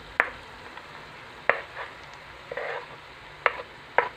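Chopped roasted peppers slid off a wooden board into a pan of onions frying in oil: the board knocks sharply against the pan four times over a steady sizzle, with a brief louder burst of sizzling about halfway through.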